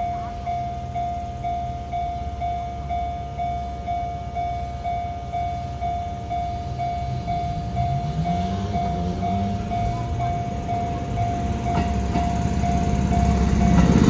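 Japanese level-crossing alarm ringing its steady electronic bell tone about twice a second. From about eight seconds in, an approaching electric train adds a low whine that rises in pitch, and the train grows louder toward the end.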